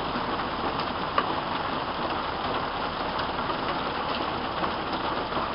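Hail falling with heavy rain: a steady pelting hiss of rain with occasional sharp ticks of dime-sized hailstones striking, the clearest about a second in.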